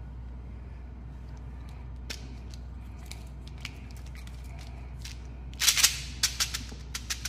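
Small candy-coated chocolates rattling and clicking inside a plastic bottle as it is handled and shaken. There are a few scattered clicks at first, then a quick loud burst of rattling about five and a half seconds in, followed by a string of separate clicks. A steady low hum runs underneath.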